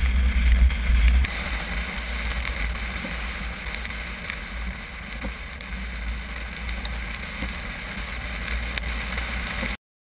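Car driving on a wet road: steady rumble and hiss of tyres, engine and wind, picked up by a camera mounted on top of the car. A heavy low rumble eases about a second in, and the sound cuts off abruptly near the end.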